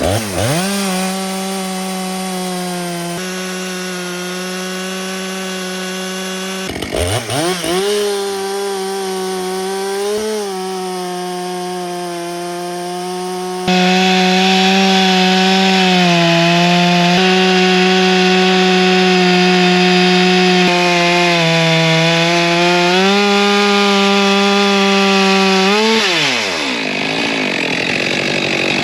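Stihl MS462 C-M two-stroke chainsaw with a 36-inch bar on an Alaskan chainsaw mill, held at full throttle as it rips a hardwood log lengthwise. The engine note sags and recovers several times as the load changes, dips once about seven seconds in, and near the end the throttle is let off and the engine winds down.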